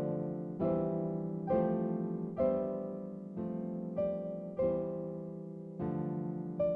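Background piano music: slow, gentle notes and chords struck about once a second, each ringing out and fading.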